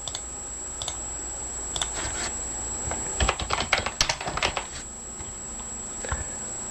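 Typing on a computer keyboard: a few scattered keystrokes, then a quick run of them in the middle.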